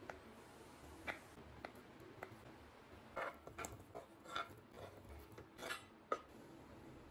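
A kitchen knife slicing soft boiled taro root on a wooden chopping board, a few light knocks of the blade on the board, then a run of clatters and clicks as the pieces go into a ceramic bowl, ending in one sharp clink about six seconds in.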